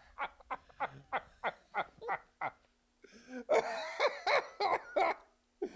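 A man laughing: a run of short ha-ha bursts, about three a second, then louder, heavier laughter starting about three seconds in.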